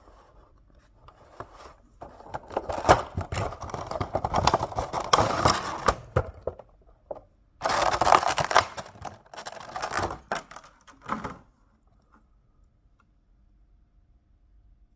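Funko Pop cardboard box and its plastic insert being handled and opened: irregular bursts of scraping, rustling and tearing of cardboard and plastic, with clicks, which then stop.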